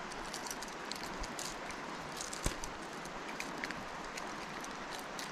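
Steady running river water, with scattered light ticks and a single sharp knock about two and a half seconds in.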